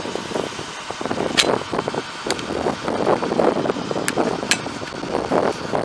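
A 2009 Ford F550 Super Duty bucket truck with a 6.4L V8 diesel running, making an uneven noise. Four sharp clicks or knocks come through it, at about one and a half, two and a half, four and four and a half seconds in.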